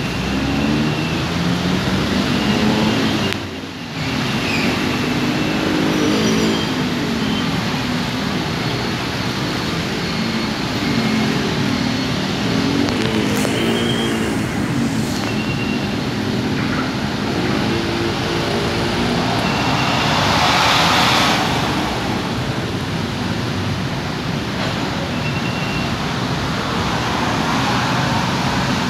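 Street traffic of motorcycles and minivans, their engines idling and revving up and down. A louder swell of a vehicle passing close comes about twenty seconds in.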